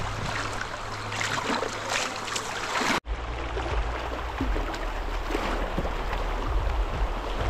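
Fast river water rushing and splashing around a kayak running rapids. The sound drops out for an instant about three seconds in, then the rushing water carries on with a low rumble beneath it.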